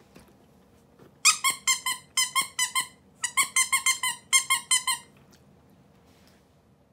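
Plush koala toy squeaking as its belly is pressed by hand: four quick runs of short, high squeaks, starting about a second in.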